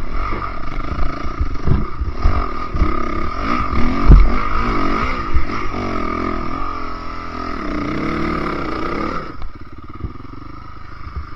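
Enduro dirt bike engine revving up and down as the bike is ridden over a rough trail, with knocks from the bumps and one loud thump about four seconds in. After about nine seconds the engine falls back to a quieter, steadier running.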